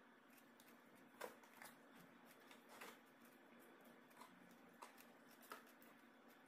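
Near silence with faint eating noises: a handful of small clicks and rustles from spoons, bowls and a paper fried-chicken box being handled, the clearest about a second in.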